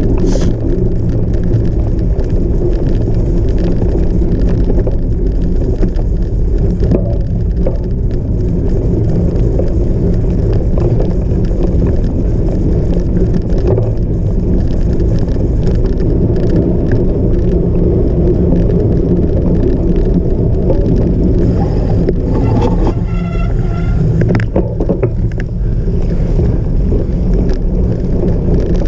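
Steady, loud rumble and rattle of a cyclocross bike ridden over rough off-road ground, picked up by a camera on the bike or rider, with scattered knocks. About 23 seconds in there is a short pitched squeal.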